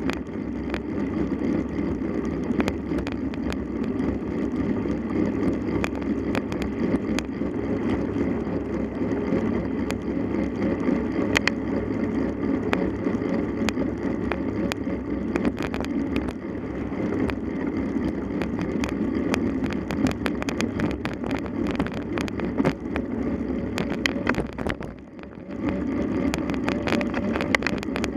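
Wind rushing over the microphone and the clatter of a mountain bike being ridden over rough ground, with many sharp knocks and rattles. There is a brief lull about a second long near the end.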